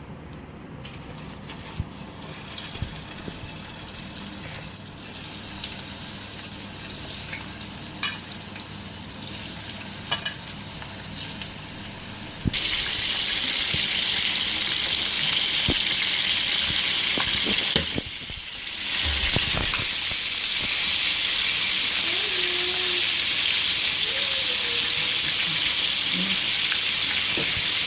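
Food frying in hot oil in a cooking pot, with scattered small clicks of stirring at first; about halfway through it suddenly gets much louder into a steady, strong sizzle that carries on with a brief drop around two-thirds of the way in.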